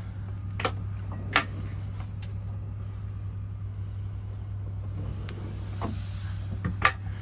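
Deep kitchen drawer on Blum soft-close undermount runners being pulled open with two sharp clicks, then slid shut with a louder click near the end, over a steady low hum.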